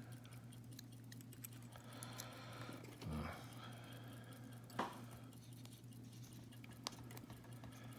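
Faint, scattered clicks and taps of small lock parts being handled as a padlock core is taken apart, over a steady low hum.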